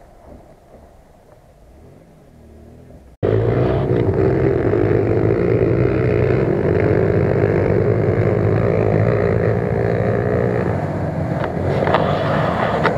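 After about three seconds of faint background, a Mitsubishi Pajero's engine comes in abruptly, loud and close. It then runs steadily as the SUV crawls over rough ground toward a rock.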